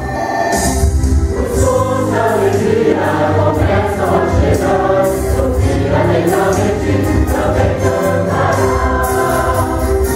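Mixed choir of men and women singing a lively song in Portuguese over instrumental accompaniment with a steady percussive beat.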